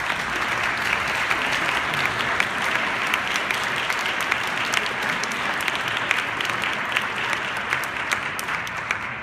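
Audience applauding, many people clapping together in a large reverberant chapel.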